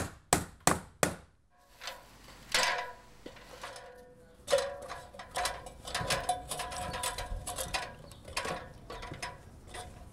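A hammer driving a nail into a 2x4, a few quick blows about three a second that stop about a second in. Then an aluminum extension ladder clanking and clicking with a metallic ring as it is set up and climbed.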